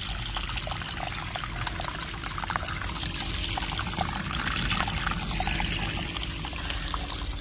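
Irrigation water gushing steadily from a plastic pipe onto a brick and spreading through a flooded vegetable bed, splashing and pouring without a break.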